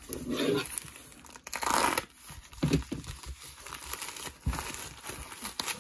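White plastic bubble mailer crinkling as it is handled and torn open. The loudest rip comes about a second and a half in, followed by rustling and a few small clicks as hands reach inside.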